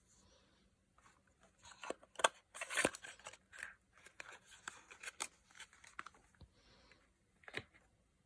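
Handling of cosmetic products and their packaging: scattered clicks and short rustling, tearing-like spells, busiest about two to three seconds in.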